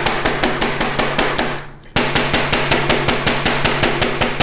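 Meat mallet rapidly pounding plastic-wrapped raw chicken breasts on a cutting board, several strikes a second, flattening the thick parts to an even thickness. The pounding breaks off briefly a little under two seconds in and starts again suddenly.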